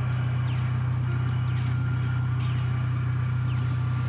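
Steady low drone of a running vehicle engine, with short falling chirps above it every second or so.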